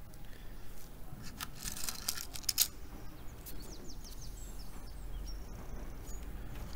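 Hot-staple plastic welder pushing a heated staple into a headlight's plastic: a quick run of sharp crackles and clicks, followed by faint short high chirps.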